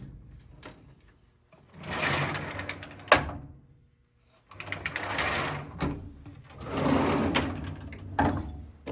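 Heavy steel drawers of a Lista modular tool cabinet being pulled open and pushed shut several times. Each rolls and rattles on its slides for a second or two, with a sharp clunk as one closes about three seconds in and more clicks near the end.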